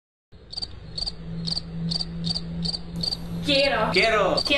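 Regular cricket-like chirping, a little over two short high chirps a second, over a steady low hum. A voice comes in near the end.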